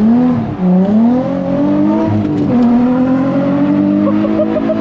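Nissan 350Z's 3.5-litre V6, fitted with headers and an aftermarket exhaust, heard from inside the cabin while driven hard. The engine note rises and falls with the throttle, dropping sharply about half a second in and again about two and a half seconds in, then climbing slowly.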